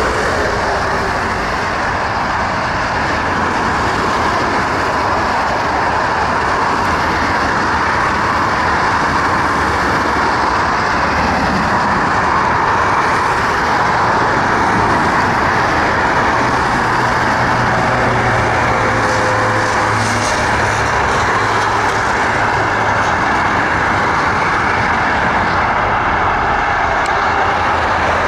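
Airbus A320 airliner's jet engines on landing: a steady, even rush of engine noise through approach, touchdown and rollout, swelling slightly midway.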